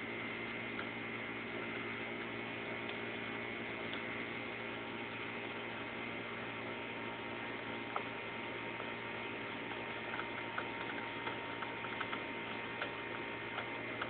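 Steady hum, with faint clicks of a lock pick working the pins of a six-pin interchangeable core lock cylinder: one sharper click about eight seconds in, then a run of light ticks near the end.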